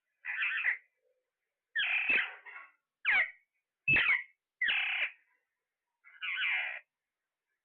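A parrot calling in short squawks, about six separate calls spaced roughly a second apart.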